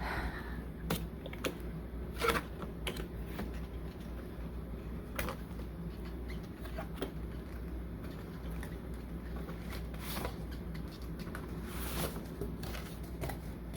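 Cardboard box being handled and opened: scattered taps, scrapes and rustles of cardboard, a few of them sharper.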